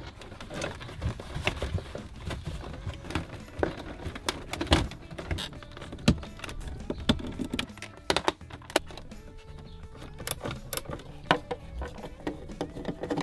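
Hard plastic center console and trim of a Volvo 850 knocking and clicking into place as it is fitted by hand and screwed down. An irregular run of sharp clicks and taps, a few louder knocks among them.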